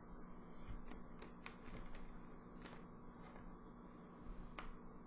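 Quiet room tone with a low steady hum and a few faint, scattered clicks.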